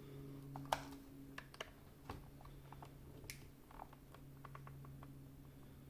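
Faint, irregular small clicks and scrapes of thin metal pry tools working against the plastic clips of a KitchenAid food processor lid as the two halves are pried at.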